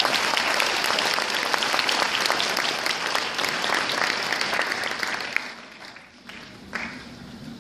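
An audience applauding: dense, many-handed clapping that dies away about five to six seconds in.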